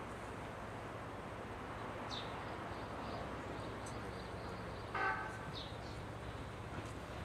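Chichibu Railway 7500-series electric train (ex-Tokyu 8090 series) approaching slowly, a steady low rumble and hum, with small birds chirping. A brief higher-pitched tone about five seconds in is the loudest moment.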